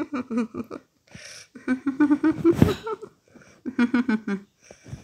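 Speech: a person's voice speaking a narration line in short phrases, with short pauses between them.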